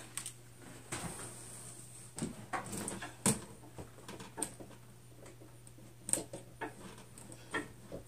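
Scattered light knocks, clicks and rustles from hands handling a microwave oven's power cord while reaching behind the counter to plug it in; the sharpest knock comes about three seconds in.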